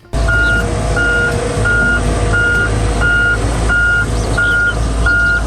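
Heavy vehicle's reversing alarm beeping steadily, a single high beep about three times every two seconds, over a loud engine rumble; it starts suddenly.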